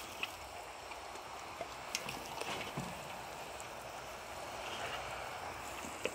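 Garden hose spray nozzle sending a steady shower of water onto soil and plants, a continuous even hiss with a few short clicks and splashes.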